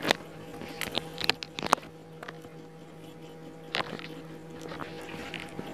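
Covered pot of water coming to the boil under a glass lid: scattered small pops and clicks over a steady faint hum.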